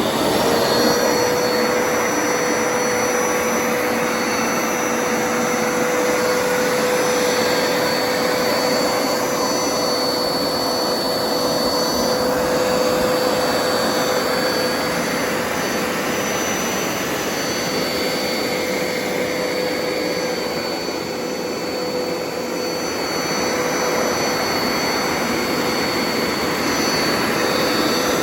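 Hoover Power Scrub Deluxe carpet cleaner switched on, its motor coming up to speed at once and then running steadily: a constant whine over the rush of its suction.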